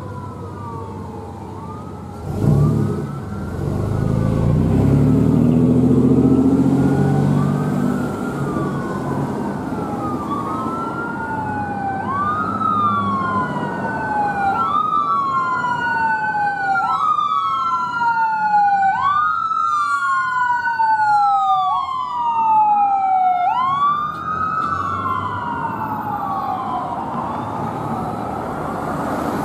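Emergency vehicle sirens sweeping up and down, each rise and fall taking about a second and a half, with a second siren overlapping for several seconds in the middle. About two and a half seconds in, a heavy vehicle's engine rumbles loudly past for several seconds.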